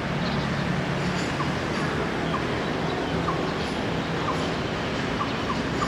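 Outdoor ambience of steady background noise with small birds chirping, short single chirps every second or so.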